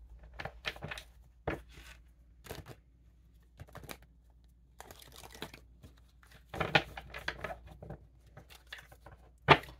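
Tarot cards being handled and shuffled: scattered rustles and flicks of card stock, a denser shuffle past the middle, and one sharp snap near the end.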